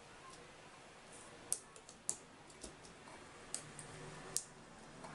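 Faint room tone broken by about half a dozen small, sharp clicks scattered over a few seconds, from hands handling the circuit boards and wiring.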